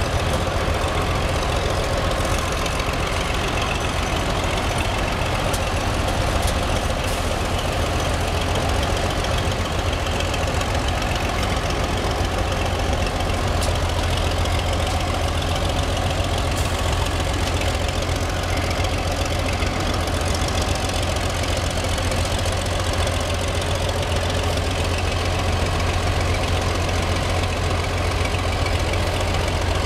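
Engine of a 1969 Lima 700T truck crane running steadily under light load while the operator swings the upper works and boom round.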